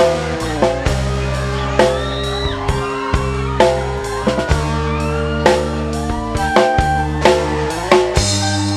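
Live band music: electronic keyboard holding chords with gliding lead notes, punctuated by drum-kit hits.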